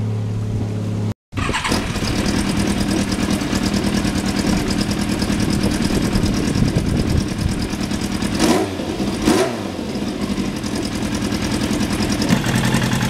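1991 Yamaha FZR1000's inline-four engine running, blipped twice briefly around the middle and settling back to a steady idle near the end. The sound cuts out for a moment about a second in.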